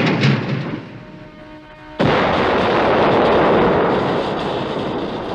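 Film sound effect of a neon sign exploding in a shower of sparks: the fading tail of a crash, then a sudden loud blast about two seconds in whose noise carries on and slowly dies away.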